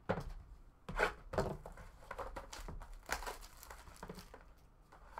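Hands handling a sealed cardboard trading-card box on a table: a few sharp knocks and scrapes, with crinkling of packaging between them as the box is opened.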